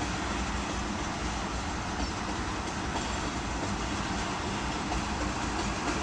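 A freight train of loaded ethanol tank cars rolling steadily past, its wheels running on the rails in an even, continuous low noise.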